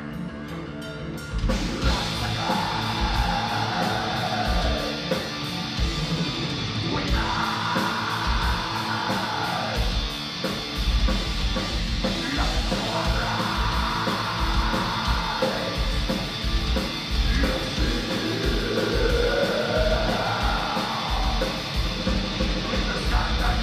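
Black metal band playing live: distorted guitars and rapid-fire drums under harsh screamed vocals. The full band comes in about a second and a half in, after a thinner opening.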